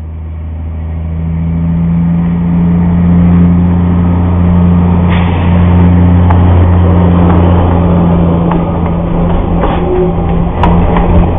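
Narrow-gauge diesel locomotive engine running with a steady low drone, growing louder over the first two or three seconds as the train approaches. Near the end, clicks and clatter of the wheels on the rails come in as it passes close.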